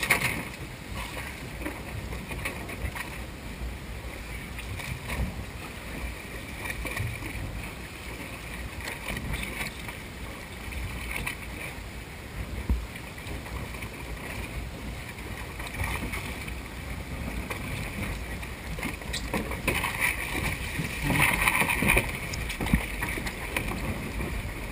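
Steady wind and water noise on deck of a boat lying at sea, with a few knocks as kayaks are handled against the boat's side. Faint voices come in near the end.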